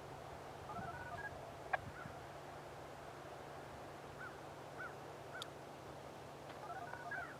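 Faint outdoor background with a few short, high chirps. Twice a brief run of faint stepped beep tones sounds, typical of the radio tone codes that activate the warning siren system.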